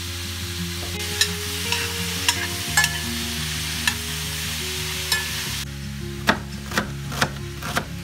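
Meat and vegetables sizzling in a cast-iron frying pan while a spoon stirs them, clicking against the pan. About halfway through the sizzle cuts off and a kitchen knife slices an onion on a wooden board: four sharp cuts, about two a second.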